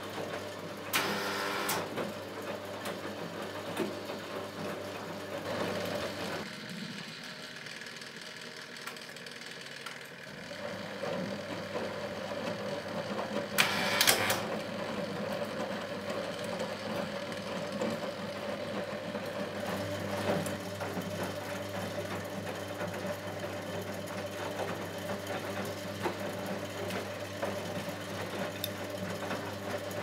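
A 1964 Miele Automatic 416 front-loading washing machine running a wash: the motor hums steadily as the drum turns the laundry, stops for about four seconds and starts again. Two brief sharp noises stand out, one about a second in and a louder one near the middle.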